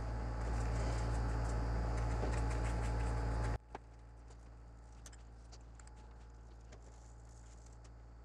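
Faint taps and light scratches of a paintbrush dabbing and blending watercolour paint on a fondant-covered cake. Under them a steady low hum cuts off suddenly about three and a half seconds in, leaving only the occasional soft tick.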